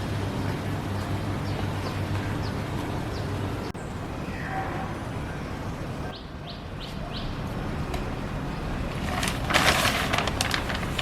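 Small birds chirping: short, high, downward-sliding calls in two brief runs, over a steady low hum that stops partway through. A louder burst of crackling noise comes near the end.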